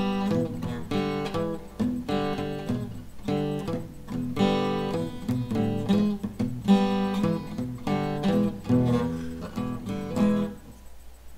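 Acoustic guitar strummed in a steady run of chords with no singing. The playing dies down briefly near the end.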